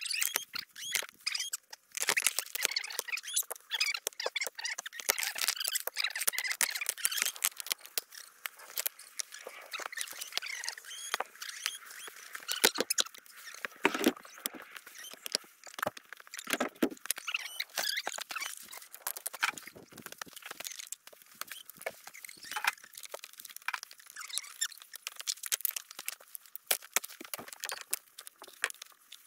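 Hens scratching and pecking in the coop, giving many quick clicks and rustles, with soft high squeaky calls among them.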